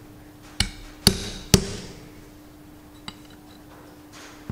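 Ball-peen hammer tapping the end of a steel split pin in a tractor front wheel hub three times, about half a second apart, each tap with a short ring. The pin is being bent over against the castellated wheel-bearing nut.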